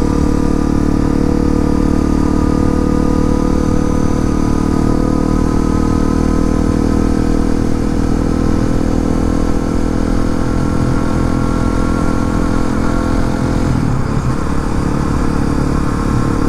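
Honda CRF250L's single-cylinder four-stroke engine running at a steady speed under way, its note dipping briefly about fourteen seconds in.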